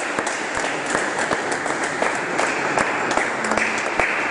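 A small group of people applauding, many quick irregular hand claps overlapping.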